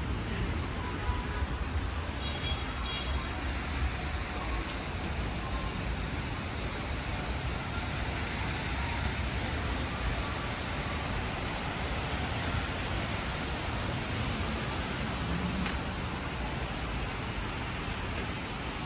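Steady city traffic noise from cars driving on wet streets below, with a constant low rumble.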